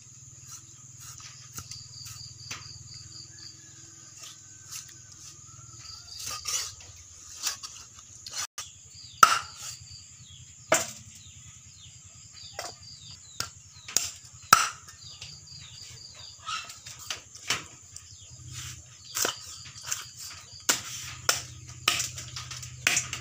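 Heavy cleaver chopping raw chicken on a thick wooden chopping board: irregular sharp chops, some hit much harder than others. Insects chirp steadily in the background.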